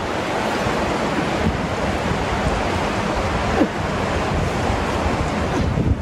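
Steady rushing of a fast river, an even noise without breaks.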